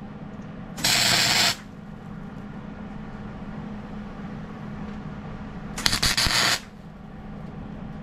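Welding arc hissing and crackling in two short bursts, each under a second, about a second in and again around six seconds in. A steady low hum runs underneath throughout.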